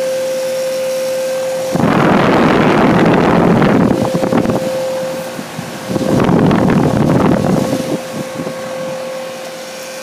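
York Latitude heat pump outdoor unit running in heat mode, a steady hum under the cold air blowing up from its top fan. The fan discharge buffets the microphone in two loud rushes, starting about two seconds in and again about six seconds in, each lasting about two seconds.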